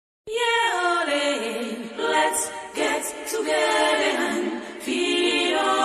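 Unaccompanied singing opening a song: voices in harmony, sliding down between notes, with no drums or bass. It starts a moment in.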